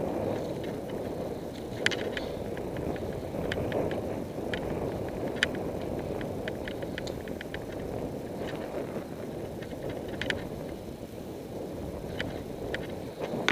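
Road bicycle riding on tarmac, heard from a camera mounted on the bike: a steady rush of wind and tyre noise with scattered sharp clicks and rattles.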